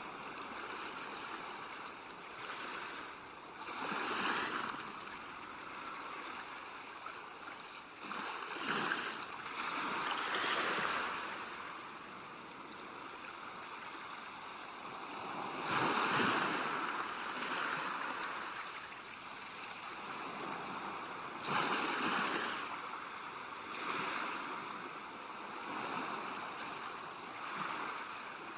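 Ocean waves washing in, surging and falling back every few seconds, with the biggest surge about halfway through.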